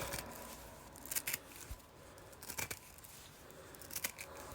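Small 3mm magnetic balls, mixed with Speks balls, being squished and rolled in the fingers, making a crisp crunching of many tiny clicks in three short spells: about a second in, near the middle, and near the end.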